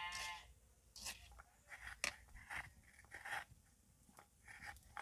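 Metal spatula stirring and scraping a sticky grated-coconut-and-sugar mixture in a metal karai: a string of short, irregular scrapes. A brief pitched call sounds at the very start.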